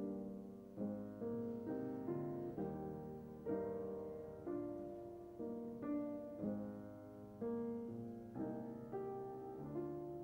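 Slow, gentle solo piano music: chords struck about once a second and left to ring and fade.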